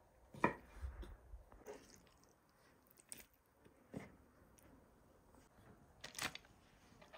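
A large kitchen knife cutting raw lamb liver on a wooden board: a handful of separate soft squishy cuts and knocks of the blade on the board, the loudest about half a second in and another about six seconds in.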